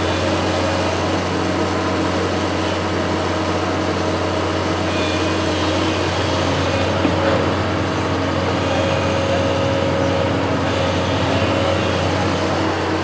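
Construction machine's engine running steadily.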